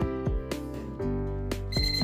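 Background music, and near the end a non-contact voltage tester pen starts a steady, high beep, its alert that the wire it is held against is live.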